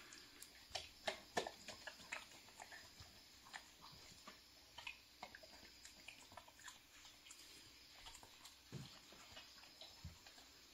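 Pungsan dog eating a small cake: faint, irregular licking and chewing smacks and clicks, a few louder ones in the first second and a half.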